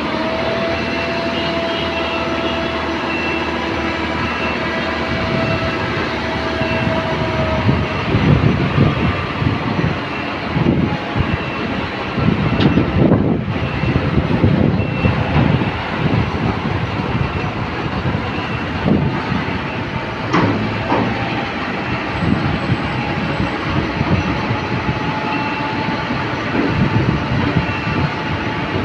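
Flatbed tow truck's diesel engine running at the kerb, with street traffic passing. A steady tone holds over the first several seconds, then uneven low rumbles come and go.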